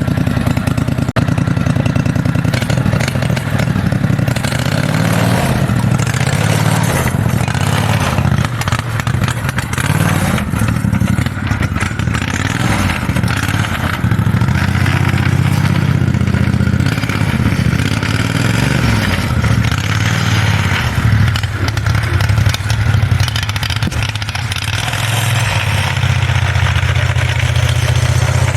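Mini bike's V-twin engine running under load, its pitch rising and falling as it is revved, settling to a steadier note near the end.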